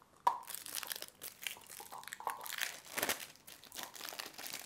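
A spray-adhesive can and its plastic cap being handled: irregular plastic clicks and short rustles, with a sharp click just after the start and another about three seconds in.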